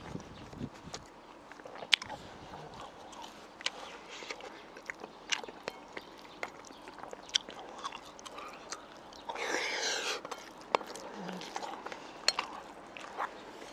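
Close-up chewing and mouth sounds of a person eating fried rice, with sharp clicks of chopsticks against the bowl scattered throughout. About nine seconds in comes a breathy burst lasting about a second.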